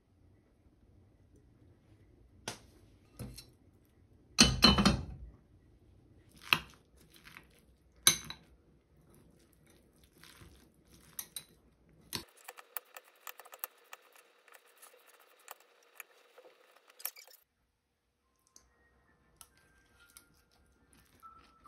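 Metal spoon and chopsticks clinking and scraping against a ceramic bowl as a bibimbap of salad vegetables is mixed. There is a string of separate sharp clinks, one louder clatter about four seconds in, and a busier run of small ticks in the middle.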